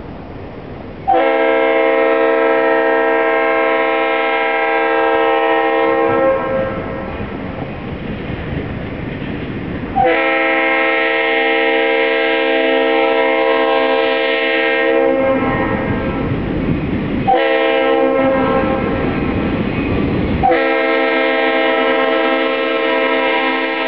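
Diesel freight locomotive air horn sounding the grade-crossing signal: two long blasts, one short, then a long one, as the train approaches. The train's rumble is heard between the blasts.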